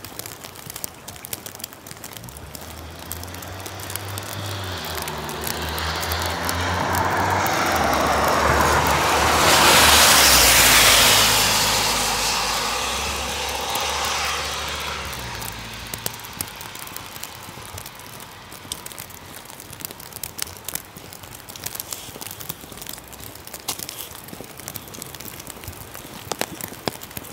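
A motor vehicle passes on a wet road: its engine and the hiss of its tyres build up, peak about ten seconds in, and fade away over the next several seconds. Rain patters throughout.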